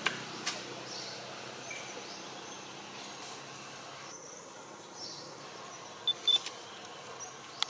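Outdoor ambience: a steady background hiss with faint bird and insect sounds. A few sharp clicks come near the start and near the end, and a pair of short, loud, high chirps about six seconds in.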